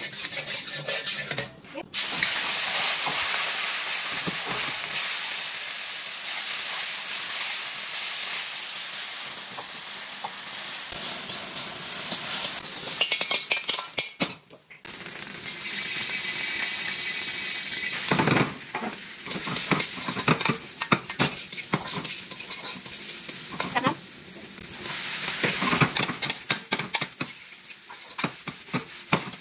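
Food frying in hot oil in a wok, with a steady sizzle. After a short break about halfway through, the sizzle comes back with repeated clinks and scrapes of metal utensils against the wok.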